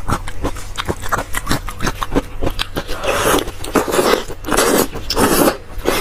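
Close-miked wet chewing and biting of soft, fatty braised pork mesentery (cockscomb oil), made up of many quick mouth clicks and smacks. Louder, wetter stretches come about three seconds in and again near the end.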